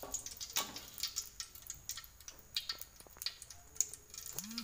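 Hot cooking oil in a wok crackling with scattered irregular pops and ticks while freshly fried egg drains on a perforated metal skimmer held over it.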